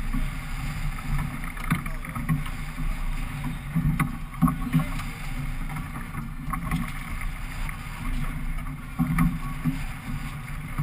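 Steady low rumble of a small fishing boat, with a few sharp knocks of gear on the deck about two, four and nine seconds in.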